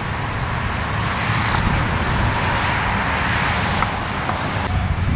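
Steady outdoor noise dominated by wind rumbling on the camcorder's microphone, with a short high chirp about a second and a half in.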